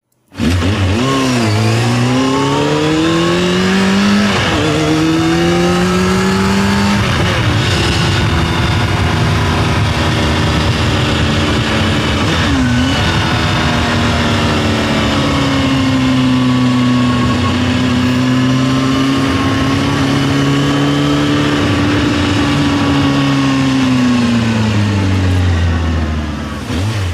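Motorcycle engine accelerating through the gears: its pitch climbs and drops back at each shift, about a second in, at about four and seven seconds, and again near thirteen seconds. It then holds a steady cruising speed with slight rises and falls, and winds down at the end.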